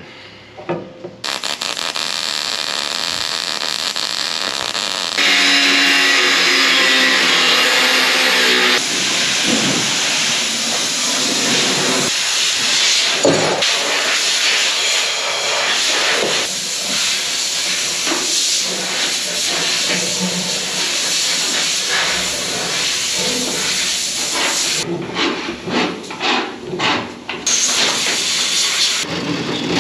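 MIG welder arc crackling and hissing as a steel patch strip is welded onto an auger tube. It runs steadily for most of the time, then comes in short stop-start bursts near the end.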